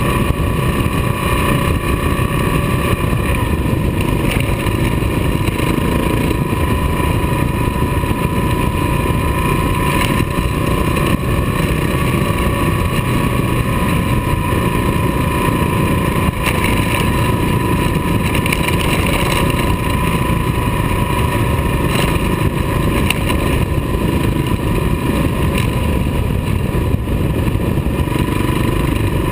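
Kawasaki KLR dual-sport motorcycle running steadily at cruising speed on a gravel road, engine drone mixed with wind and road noise, with no revving or gear changes.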